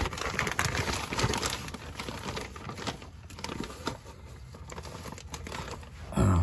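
Close rustling and crinkling with many small clicks and taps, busiest in the first three seconds and then thinning out: hands handling parts and materials near the phone.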